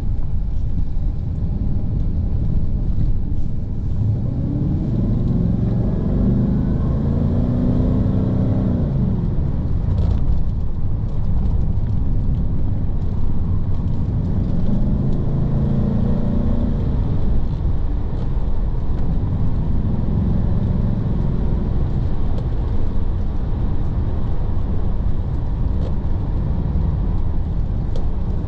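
Bentley Arnage T's twin-turbo 6.75-litre V8 and tyre rumble heard from inside the cabin while driving. The engine note rises and falls twice as the car speeds up and eases off.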